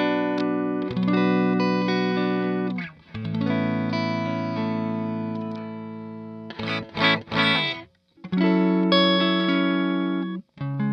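Electric guitar played through a Hiwatt DR103 clone tube amplifier with four EL34 power tubes. Chords are struck and left to ring out, with a few quick choppy strums about seven seconds in, then more ringing chords.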